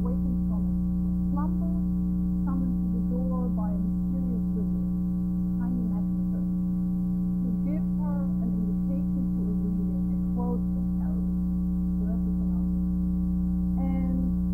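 Loud, steady electrical mains hum with a buzz of higher overtones, over faint conversation that is barely audible beneath it. This is a recording fault: the voices were recorded too low and the hum swamps them.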